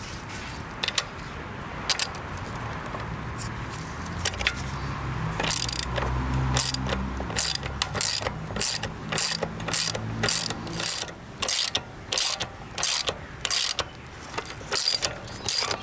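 A ratchet wrench clicking in short strokes as it cranks down the press bolt of a chain breaker tool, forcing a pin out of a motorcycle drive chain. The clicks are sparse at first, then come about twice a second.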